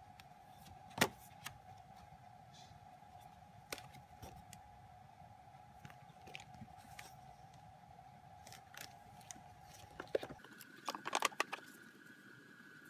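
Glossy photo prints and card being handled and shuffled: soft rustles and taps, a sharp click about a second in, and a quick cluster of handling clicks near the end. A faint steady whine in the background jumps to a higher pitch near the end.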